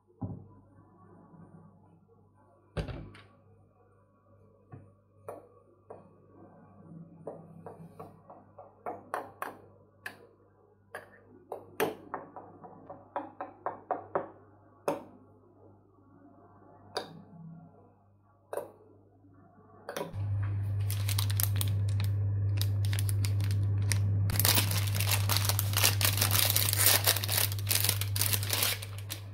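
Scattered clicks and knocks of small objects being handled. About two-thirds of the way through a steady low hum starts suddenly, and a few seconds later a loud hiss joins it and runs until near the end.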